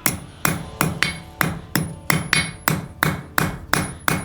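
Hand hammer striking a hot 1/4-inch mild steel bar on an anvil in a steady run of blows, about three a second, each with a short metallic ring. The smith is knocking down the corners of the bar to round it before scrolling.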